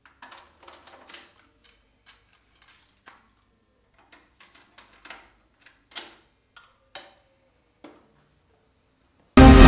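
Faint scattered clicks and small knocks as the knob of a compact hi-fi stereo is turned. Near the end, music starts suddenly at high volume from the stereo.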